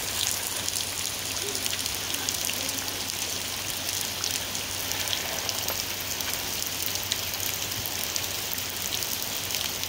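Steady rain falling through leafy trees: an even hiss with many small drop ticks.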